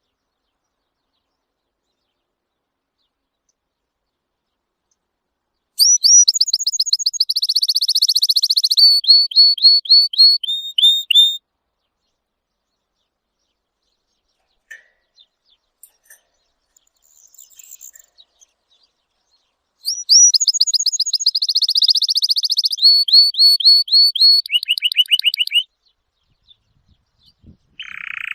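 A songbird singing two song phrases about fourteen seconds apart, each a fast trill of high notes that slows into a run of lower, separate notes. A few faint chirps come between the phrases.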